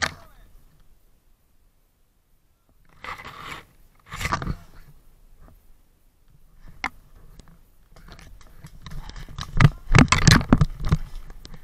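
Crunching and rustling close to the camera in short bouts, with a few sharp snaps; the loudest, densest cluster comes near the end.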